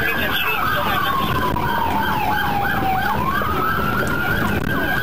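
Police car sirens during a pursuit. One siren wails in a slow sweep, falling in pitch over about three seconds and then rising again, while a second siren sounds faster, repeated yelps over it. A steady vehicle rumble runs underneath.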